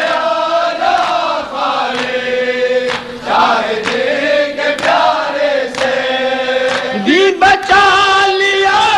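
A group of men chanting an Urdu noha, a mourning lament, in long drawn-out notes that slide between pitches. Sharp slaps of matam, hands striking chests, keep time under the voices.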